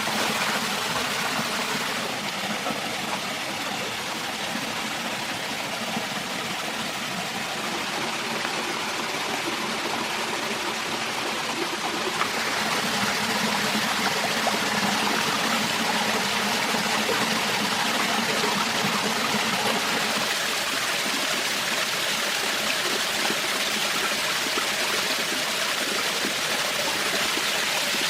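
Forest stream running steadily, a constant rush of flowing water that grows a little louder about twelve seconds in.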